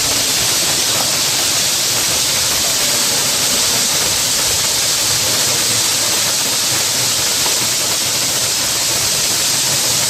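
Waterfall pouring down a rock face into a pool: a steady, loud rush of falling water with no letup.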